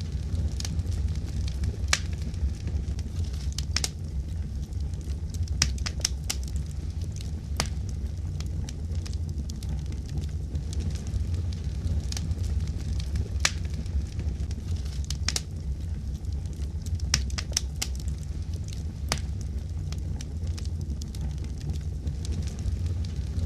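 Fire crackling: irregular sharp pops and snaps, sometimes several in quick succession, over a steady low rumble.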